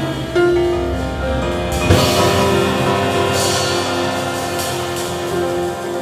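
Live jazz sextet playing: trumpet and saxophone hold long notes over piano, double bass and drums. About two seconds in comes a sharp hit, followed by a ringing cymbal wash.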